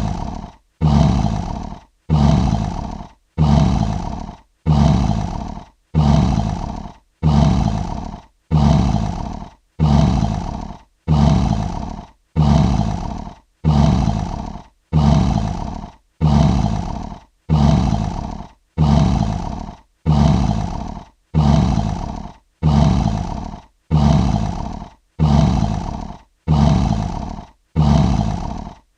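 Lion roar sound effect: one short, loud roar that starts strong and fades, repeated as the same roar over and over, a little under every second and a half with a brief silence between.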